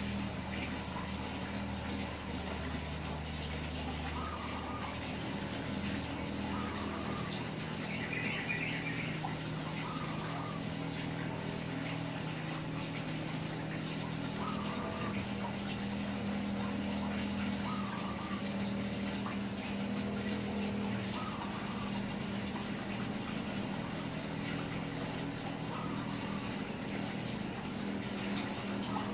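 A small motor humming steadily over an even hiss, with faint short chirps every second or two; a lower part of the hum drops out about seven seconds in.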